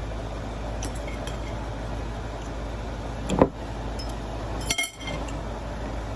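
Tableware clinking during a meal: a few light clicks, a louder knock about three and a half seconds in, and a ringing clink near five seconds, over a steady low hum.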